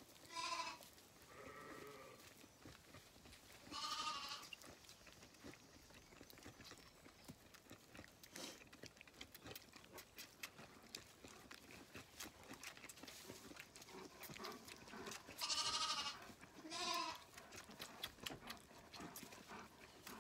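Lambs bleating: five short, wavering bleats, two close together near the start, one about four seconds in, and two more near the end, over faint rustling and clicks.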